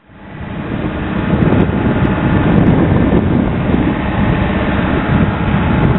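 Loud, steady rushing and rumbling of wind buffeting the microphone, fading in over the first second.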